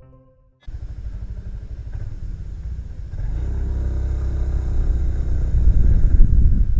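Motorcycle engine running while riding, heard from the bike's own camera; it cuts in suddenly after a moment of silence and gets louder about three seconds in.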